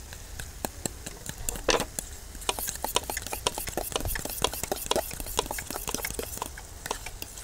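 A spoon clinking quickly and irregularly against a small stainless steel bowl as something is stirred, then a knife tapping on a plastic cutting board as fresh herbs are chopped.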